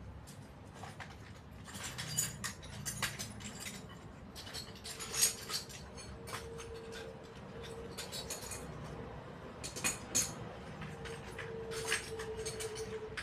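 Irregular clicks and light metallic clinks of tools and small parts being handled during repair work, with a faint steady hum coming and going from about four seconds in.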